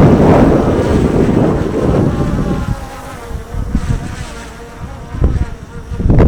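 DJI Air 2S drone's propellers buzzing with a steady pitched whine, loud at first and fainter from about two and a half seconds in as it climbs away.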